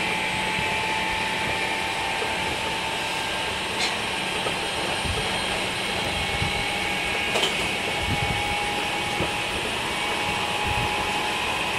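Running sound inside a Meitetsu 5000 series electric train car, on running gear taken from the 1000 series: steady rolling and motor noise between stations. Two sharp clicks come about four and seven seconds in.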